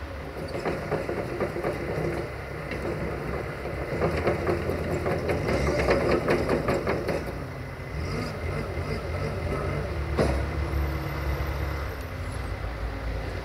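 Locust skid steer loader's engine running while the loader works its bucket at a dirt pile. A louder clattering from about four to seven seconds in, and a single sharp knock about ten seconds in.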